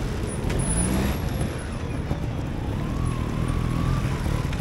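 Trials motorcycle's single-cylinder engine revving as the bike climbs the section, with a rise in pitch about half a second in and a wavering higher engine note near the end.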